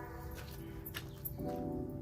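Background music of held chords, with the notes changing about one and a half seconds in. A few faint clicks sit underneath.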